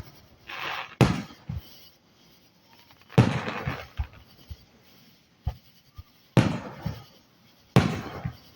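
Aerial firework shells bursting: four loud booms about a second to three seconds apart, each dying away over roughly a second, with a few smaller pops in between.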